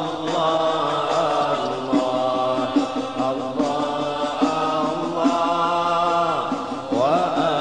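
Devotional Arabic chanting of a Sufi syair: voices sing a drawn-out, melodic 'Allah Allah Allah Allah', with long held notes that glide in pitch.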